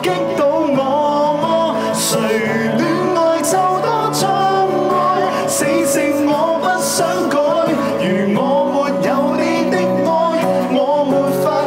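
Two male singers singing a Cantopop song live into microphones, accompanied by a strummed acoustic guitar.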